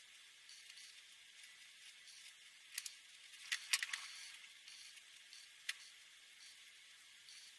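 Felt-tip marker pens scratching over paper in short strokes, a faint high hiss. A few sharp clicks come in the middle, the loudest a quick cluster about three and a half seconds in.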